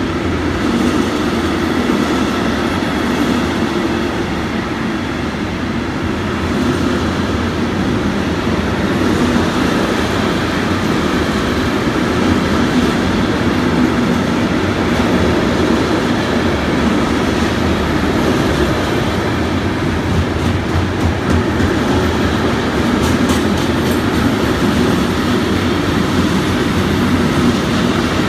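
Freight wagons carrying road trailers rolling past at speed: a steady, loud rumble and rattle of wheels on rail.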